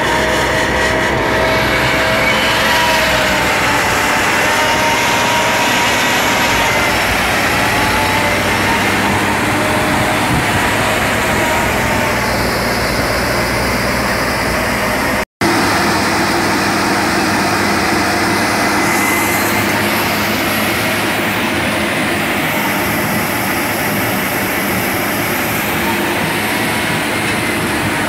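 New Holland T7200 tractor running steadily under load while driving a stone crusher through rock: a continuous engine and machinery drone with a high steady whine on top. The sound cuts out for an instant about halfway through, then resumes.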